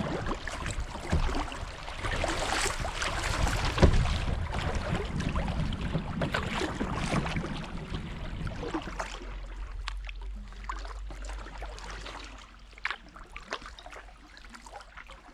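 Kayak paddling on a shallow river: a steady wash of moving water with paddle splashes and short knocks against the hull, busy for the first half and calmer and sparser after about nine seconds.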